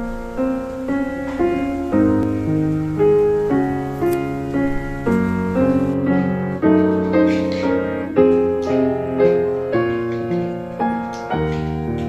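Background piano music: a slow, gentle instrumental melody of single notes over soft chords, each note struck and fading away.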